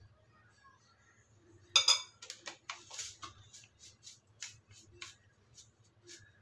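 A cardboard spice box of black pepper powder gives one sharp click about two seconds in. It is then tapped and shaken over a bowl, making a run of quick light taps, about three a second.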